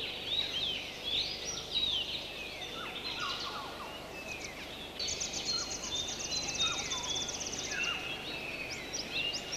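Jungle birds calling: many short chirps and sliding whistles, overlapping one another. A rapid high trill joins in about halfway through and lasts a couple of seconds.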